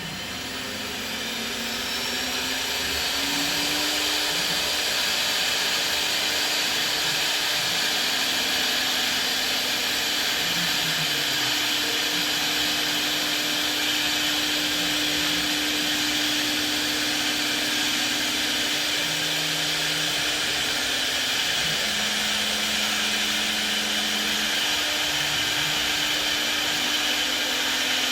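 ELE1325 CNC router running: a rising whine as the spindle spins up over the first few seconds, then a loud, steady high whirring machine noise.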